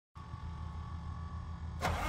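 Cummins six-cylinder turbo diesel in a Ford F650: a low steady hum with a faint high whine, and near the end the sound turns suddenly louder, with a rapid, even diesel knock.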